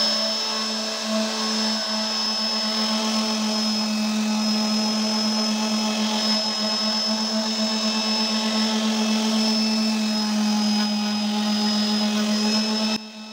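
Bort BES-450 random orbital sander with an orange foam polishing pad, running steadily while buffing an epoxy resin surface with car polishing paste: an even motor hum with a thin high whine above it. The sound cuts off abruptly near the end.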